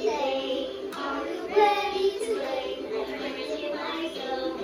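Linkimals light-up musical toys playing a song, a high child-like voice singing over a backing tune.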